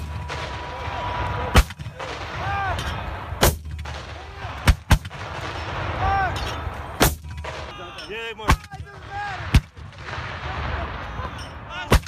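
Mortar firing rapidly for effect: sharp launch blasts about every one to two seconds, some eight rounds in all, as rounds are dropped down the tube one after another.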